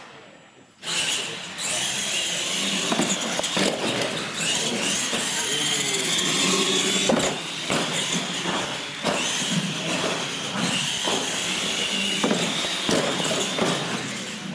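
Two radio-controlled solid-axle monster trucks racing flat out side by side: a loud whine of electric motors and gears, wavering in pitch, that starts abruptly about a second in and holds.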